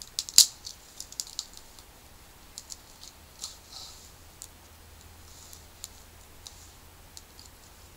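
Small twig fire crackling: irregular sharp clicks and pops, a quick run of them in the first two seconds with one loud snap, then scattered ones, with a few short soft scrapes between.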